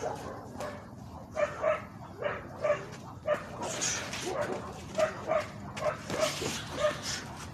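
A small dog yapping in short, sharp barks, some in quick pairs, mixed with punches smacking into boxing focus mitts.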